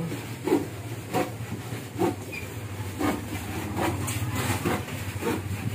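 A motor vehicle's engine idling steadily with a low hum, with scattered knocks and faint voices over it.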